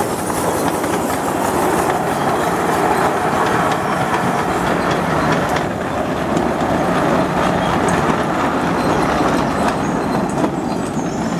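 A 7.25-inch gauge miniature Bagnall 0-4-0ST saddle-tank steam locomotive running along the track hauling two hopper wagons; a steady, fairly loud running noise throughout.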